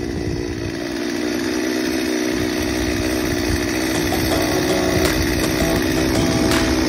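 Gas chainsaw cutting into the dead wood of an ash trunk, the two-stroke engine running steadily under load.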